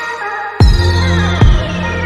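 Electronic background music with a heavy bass beat. The low end drops out briefly, then a deep kick and bass come back in about half a second in and repeat at a steady pace, under a high tone that slides slowly downward.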